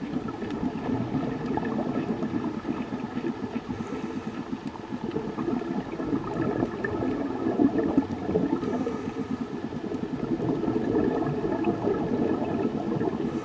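Muffled, steady rush of water with constant gurgling and bubbling, as recorded by a camera underwater.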